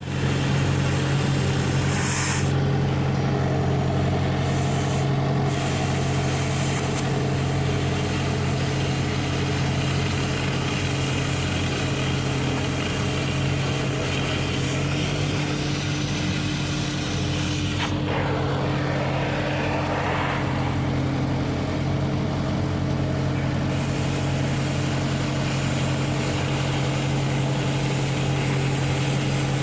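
Steady low mechanical hum with a constant drone, like a running engine or machine, and a brief stretch of louder hissing noise partway through.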